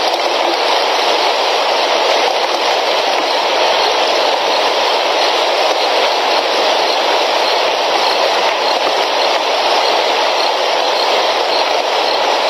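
Steady, loud rushing of water in a downpour at a waterhole filled over its bank: rain and running water making an even hiss with no breaks.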